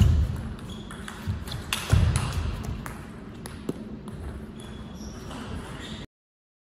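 Table tennis ball clicking sharply off bats and table at the end of a rally, with two loud low thumps about two seconds apart and a voice in the hall. The sound cuts out abruptly about six seconds in.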